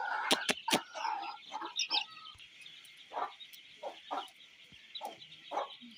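Chickens with a brood of chicks pecking at grain: short, separate clucks every second or so over a steady high chirring, with a few sharp clicks in the first second.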